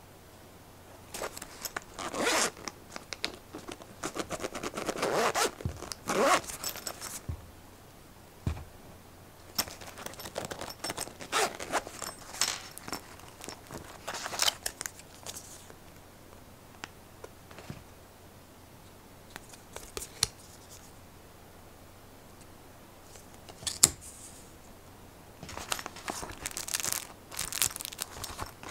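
Zipper of a nylon knife pouch being pulled open in a series of short rasping strokes, then rustling as the pouch and its contents are handled, with one sharp click about three-quarters of the way through.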